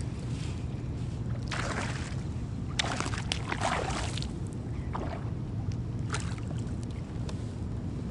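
A small hooked bass splashing at the water's surface beside a kayak as it is reeled in: a few splashy bursts between about one and a half and four seconds in, then smaller splashes, over a steady low rumble.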